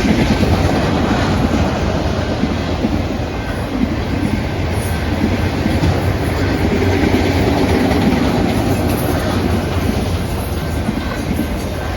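Long freight train rolling past, its cars' wheels running over the rails in steady, loud, continuous noise.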